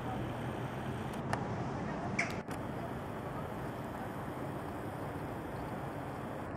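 Steady outdoor background noise, with two brief high chirps about one and two seconds in.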